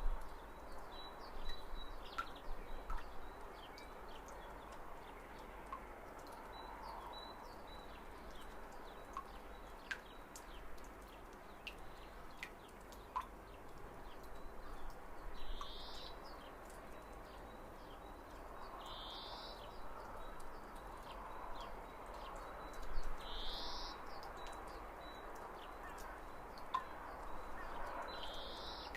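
Spring outdoor ambience: birds calling, with one short high call repeated about every four seconds in the second half, over a faint steady high trill and a soft background hiss, with scattered small clicks.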